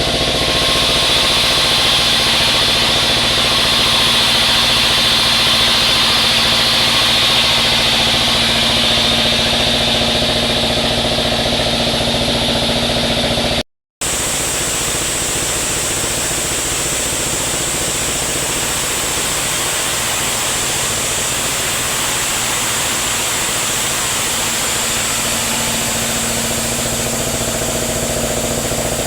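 Sawmill machinery running steadily while sawing sengon wood into beams, a continuous drone with a hiss above it. It breaks off for a moment about halfway through, then carries on.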